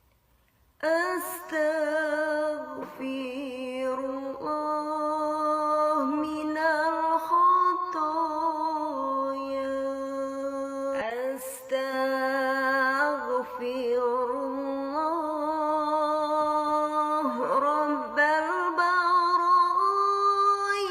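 One voice humming a slow melody without words, in long held notes with vibrato and short breaks for breath; it starts about a second in.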